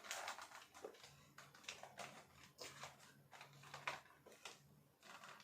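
Faint, irregular small clicks and taps of hard plastic parts being handled, as the battery compartment on a large toy figure is opened.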